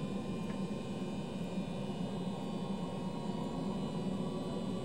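Ilyushin Il-18's Ivchenko AI-20 turboprop engines running on the ground, heard from inside the cabin: a steady drone with a layer of high, steady whining tones over it.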